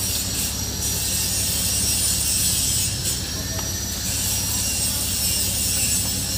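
A steady low mechanical hum with a constant high-pitched whine over it.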